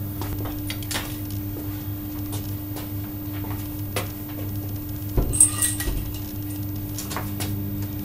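Iron weight-training gear clinking and knocking: scattered light knocks, then a louder cluster of knocks and metal clinks about five seconds in, over a steady low hum.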